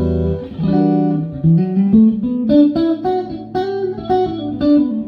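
Electric Stratocaster guitar with Fatpups Crossroads pickups, played clean: a held chord rings out, then from about half a second in a run of single picked notes and double stops.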